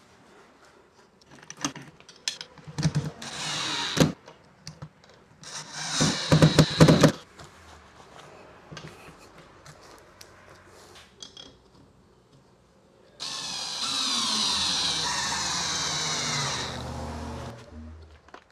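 Cordless drill driving a long wood screw through a kayak rack bracket into a wall stud. The motor runs for about four seconds in the last third, its pitch falling as it slows under load. Before that come a series of clicks and knocks, with a loud brief clatter about six seconds in.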